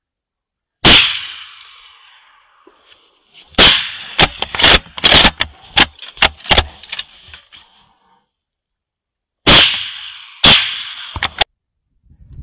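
Rifle shots at coyotes, each trailing off in an echo: a single shot about a second in, a rapid string of about eight shots over roughly three seconds, then two more shots about a second apart with a few fainter cracks after them.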